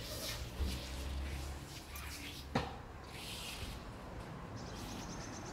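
Magnet-fishing rope being handled with gloved hands, with hissing rustles as it is paid out, and one sharp knock about two and a half seconds in.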